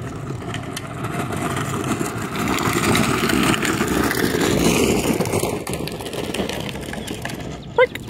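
Hard plastic wheels of a child's ride-on trike rumbling over asphalt as it rolls past, growing louder, then fading away. A short high squeak near the end.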